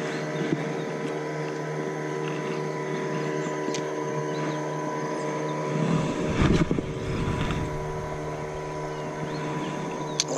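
Steady motor-like hum holding several fixed tones, with a brief low rumble about six seconds in and a sharp click near the end.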